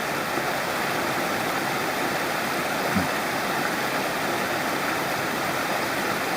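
Mountain stream water running in a steady rush.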